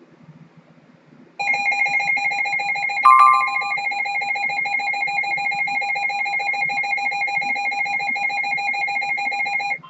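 Emergency Alert System attention tone: a loud, steady electronic alarm tone that starts about a second and a half in, holds for about eight seconds and cuts off suddenly. It signals that an emergency alert message is about to be broadcast. A brief, higher beep sounds over it about three seconds in.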